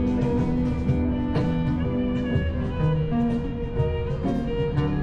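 Background music led by a plucked guitar, with steady held notes underneath.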